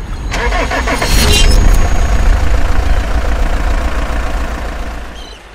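Engine starting with a burst of clatter in the first two seconds, then running with a loud low rumble that fades down near the end.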